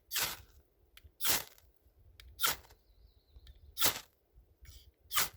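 Ferrocerium rod scraped with the 90-degree spine of a Leatherman Supertool 300 saw blade, five short rasping strikes about every 1.3 seconds, each throwing sparks.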